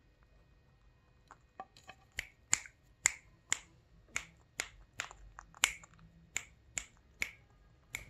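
An Indian ringneck parakeet making sharp clicking sounds with its beak, about two a second. The clicks start faint about a second in and grow louder and sharper.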